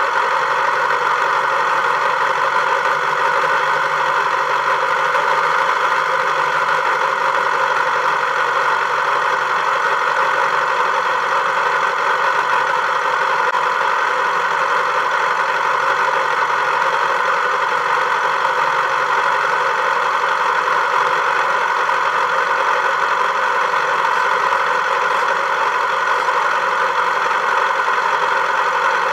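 An engine running steadily, unchanging in pitch and level.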